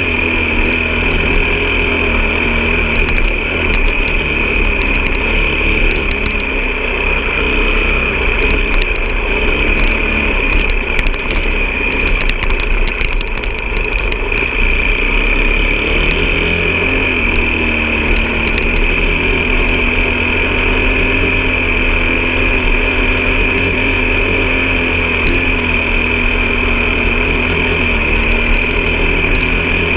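An off-road vehicle's engine running steadily under way, with a steady high whine and scattered clicks and knocks, heaviest in the first half.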